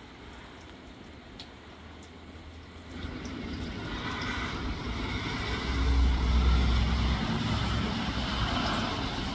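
Steady rain falling, then from about three seconds in a road vehicle passing on the wet road: a low rumble that peaks around the middle, with tyre hiss over the rain.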